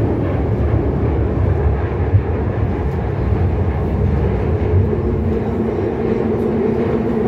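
Madrid Metro Serie 7000 train running through a tunnel, heard from inside the carriage: a loud, steady low rumble with a faint hum over it.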